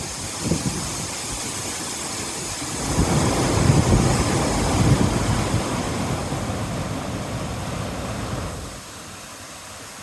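Rushing water from a waterfall. From about three seconds in, a louder low rumble swells over it, then drops away sharply near the end, with a short knock about half a second in.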